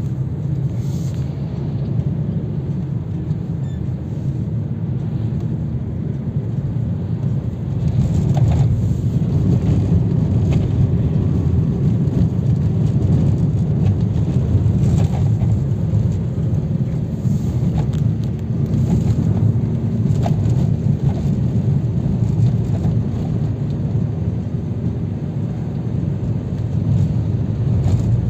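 Car driving, heard from inside the cabin: a steady low rumble of engine and tyres on the road, getting louder about eight seconds in.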